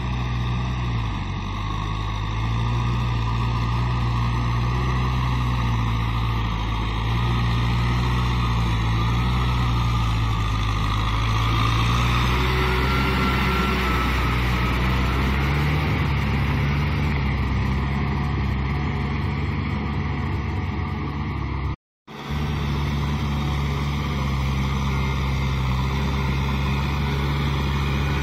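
Kubota M6040 SU tractor's four-cylinder diesel engine running steadily under load as it pulls a rotary tiller through flooded paddy mud. The engine note shifts about a second in and again about halfway through. The sound cuts out for a moment about three quarters of the way through.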